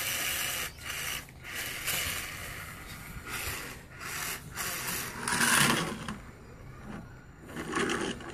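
Irregular rustling and scraping in short bursts, like a toy being handled and rubbed about.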